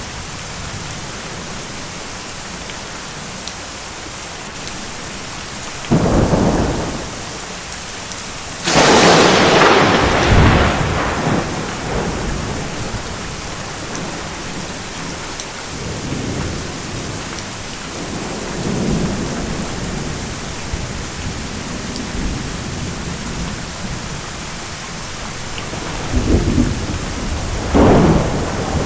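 Steady heavy rain with thunder. A thunderclap about six seconds in is followed by a louder, sharper crack that rumbles away over several seconds. Softer rolls come midway, and two more claps come near the end.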